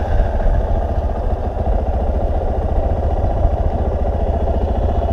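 Dual-sport motorcycle engine idling steadily, an even, unchanging run with no revving.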